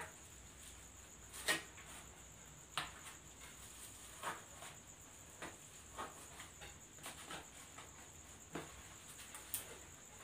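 Scattered soft rustles and light clicks of hands handling leaves and the black plastic bag wrapped over the floral foam, about a dozen short sounds with the loudest about one and a half seconds in. A faint steady high-pitched whine runs underneath.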